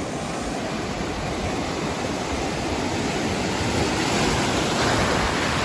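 Sea surf: waves breaking and foamy water rushing up the sand, growing louder in the last couple of seconds as a wave washes in.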